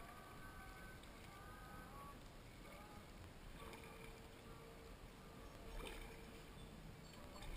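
Very quiet river ambience from a kayak: soft paddle strokes in the water about every two seconds, with faint distant tones in the background.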